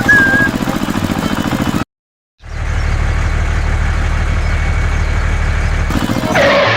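Small engine running with a fast, even chug, then after a brief cut to silence a steady low drone; a short louder pitched sound comes in near the end.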